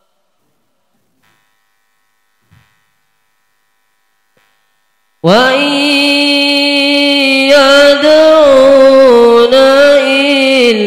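Near silence for about five seconds, a breath pause in the recitation. Then a young man's voice comes back loud through a hand-held microphone, reciting the Quran in the melodic, drawn-out tilawah style with long held notes that bend slowly in pitch.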